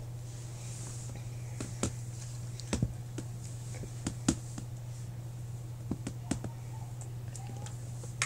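Handling noise from plastic dolls and toy furniture or the camera being moved: scattered light clicks and knocks, about seven in all, over a steady low hum.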